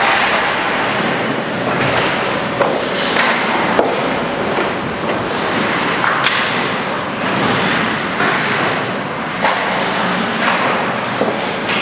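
Ice hockey play in an indoor rink: a steady noisy hiss with sharp knocks now and then, about half a dozen spread through, from skates on the ice and sticks and pucks striking.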